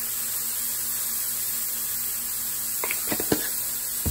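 Chopped garlic, green onion and jalapeño frying in a nonstick skillet on medium-high heat: a steady, even sizzle, with a few light clicks about three seconds in and another near the end.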